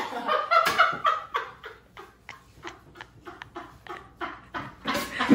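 A person laughing under their breath in short, breathy bursts, several a second, after a few spoken words.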